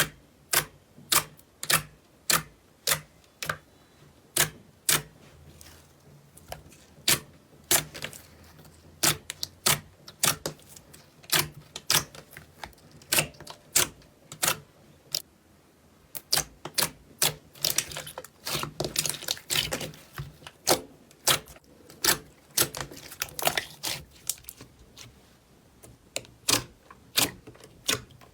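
Slime being pressed and poked, giving sharp wet pops about twice a second, with a denser stretch of crackling a little past the middle.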